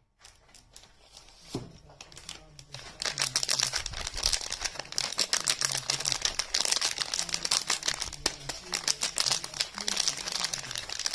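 Soap packaging crinkling and crackling as it is handled and unwrapped close to the microphone: faint at first, then a dense run of loud crackles from about three seconds in.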